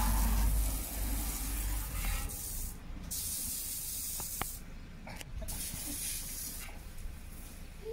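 Garden hose spraying water, rinsing down a jet ski on its trailer; the hiss of the spray cuts out briefly a few times.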